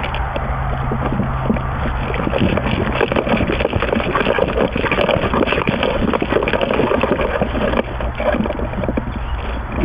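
Close, continuous rustling and crackling, like clothing, gear and brush rubbing right against a worn camera's microphone, with a low steady hum underneath that drops out about two and a half seconds in and returns near the end.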